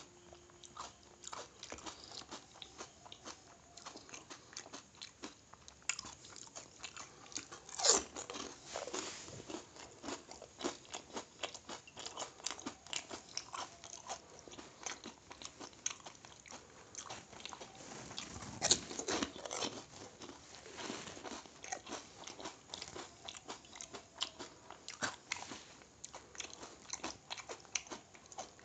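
Pani puri being eaten: crisp, hollow puri shells filled with pani crunching as they are bitten, with chewing between bites. The loudest crunches come about 8 and 19 seconds in.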